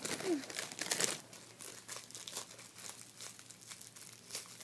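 Plastic wrapping crinkling and rustling as a squishy toy is handled and unwrapped by hand, busiest in the first second or so, then in scattered crackles.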